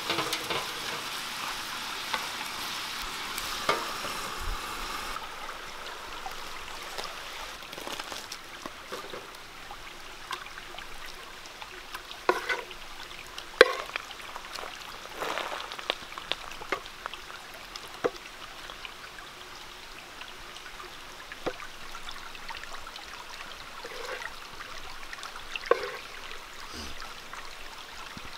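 Food sizzling in a pan over a wood fire for the first few seconds, then a wooden spatula scraping and knocking against a metal pan as the cooked chicken mixture is scooped into a clay bowl, in scattered clicks and scrapes.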